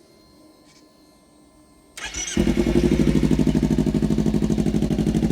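Kawasaki Ninja 300's parallel-twin engine breathing through a KajiMotor slip-on aftermarket muffler: cranked by the starter about two seconds in, it catches almost at once and settles into a steady idle.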